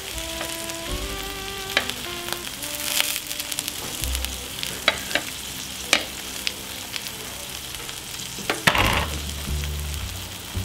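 Sirloin steaks sizzling on the oiled, paper-lined hotplate of a gas barbecue, with several sharp clicks of metal tongs and a spatula as the steaks are turned and basted.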